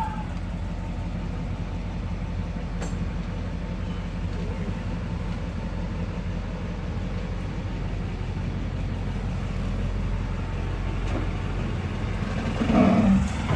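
Steady low mechanical drone of an engine or motor running, with no clear change in pitch and getting slightly louder near the end.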